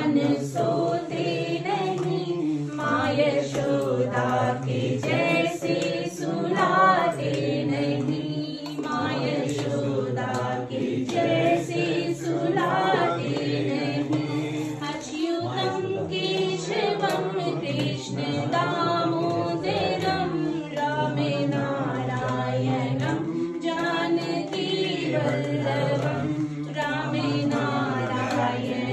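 A Hindu devotional bhajan sung without instruments, led by a woman's voice with other voices in the room joining in.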